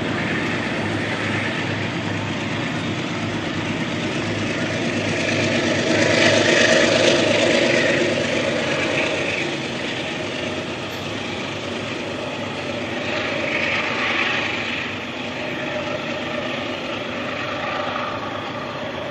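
Metro-North diesel push-pull train pulling out and moving away, its GE P32 Genesis locomotive running and the wheels rolling on the rails. It grows louder about six seconds in, then fades gradually as the train recedes.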